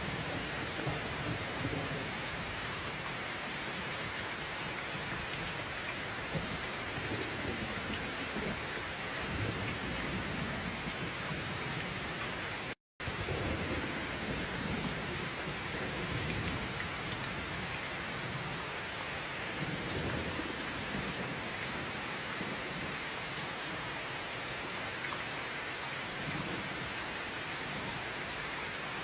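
Steady heavy rain, with slow low rumbles of distant thunder swelling under it. The sound cuts out completely for a split second about halfway through.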